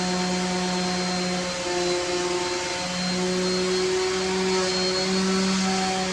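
A motor running steadily with a low hum over a broad hiss, its pitch wavering slightly.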